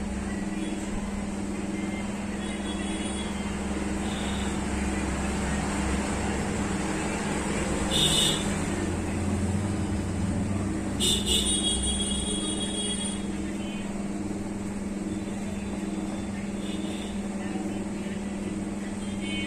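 A steady low mechanical hum with rumble underneath, broken by a brief sharp noise about eight seconds in and a short cluster of sharp sounds around eleven seconds in.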